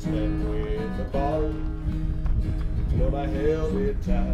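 Country song with strummed acoustic guitar and a sliding lead melody.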